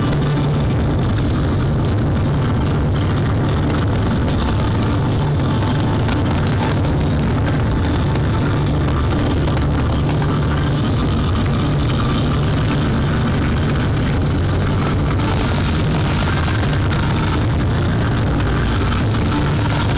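A dense, continuous fireworks barrage: rapid bangs and crackle merging into a steady, loud rumble, with display music playing underneath.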